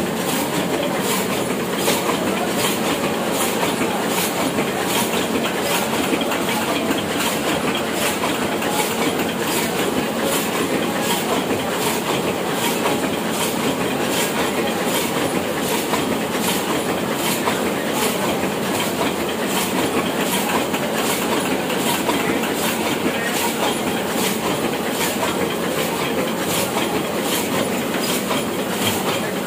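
Old Hashimoto sheet-fed offset printing press running, a steady mechanical clatter with a regular beat about twice a second.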